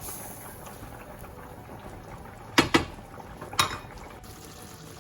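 Crème fraîche sauce with shrimp and sole simmering in a pan. Three sharp knocks of a utensil on the pan come a little past halfway, two close together and then one more.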